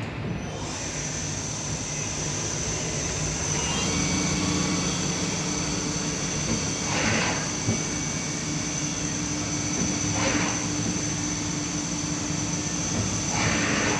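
Miyano BND-42S5 CNC lathe running: steady machine hum under a high whine that starts about half a second in, with a lower tone joining about four seconds in. Short hissing bursts come three times, roughly every three seconds.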